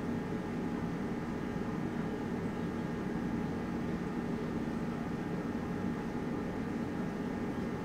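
A steady mechanical hum with several held tones, unchanging throughout.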